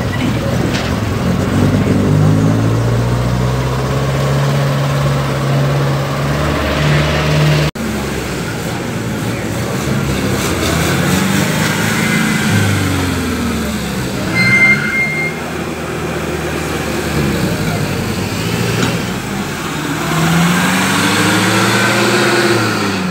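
Motor vehicle engines running. For the first few seconds there is a steady engine drone whose pitch steps up and down. After a sudden cut, old open tour jeeps are manoeuvring, their engine pitch rising and falling as they pull away and pass, rising again near the end. A brief high beep sounds about halfway through.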